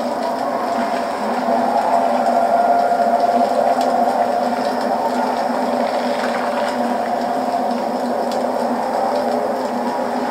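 Soundtrack of an animated fight scene: a steady drone with several held tones, growing a little louder about two seconds in.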